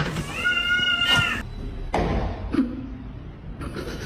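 A domestic cat meows once, a drawn-out, high call lasting about a second near the start.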